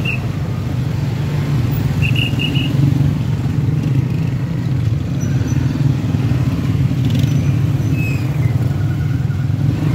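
Small motorcycle engine running steadily at low speed, with a brief faint high squeak about two seconds in.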